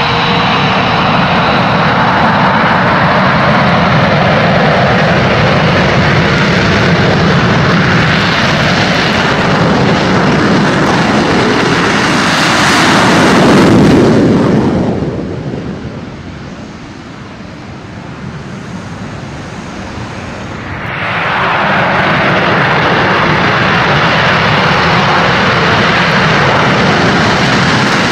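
F-22 Raptor fighter jets running their engines at takeoff power, loud, with a steady whine at first. The noise peaks about halfway through as one lifts off, drops away sharply for several seconds, then comes back up to full strength.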